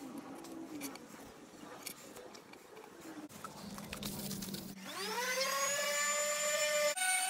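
Electric orbital sander starting up past the middle, its whine rising in pitch and then running steadily at speed. Before it starts there are only faint handling clicks.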